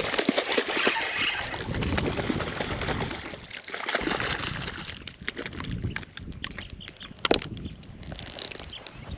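A spinning reel being cranked while a hooked stingray splashes as it is reeled in and pulled ashore, with many sharp clicks and rustles of handling. The noise is thickest in the first three seconds, and the sharpest click comes about seven seconds in.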